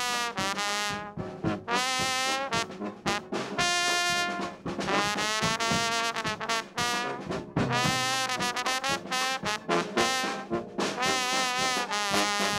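Slide trombone playing a jazz solo: phrases of notes with a wide, wavering vibrato, and one long held note about four seconds in.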